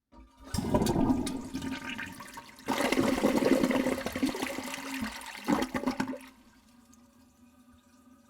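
Toilet flushing: water rushes in with a loud surge, eases, then surges again about three seconds in. A few short bursts come around five and a half seconds in, and the sound then falls away to a faint steady hum.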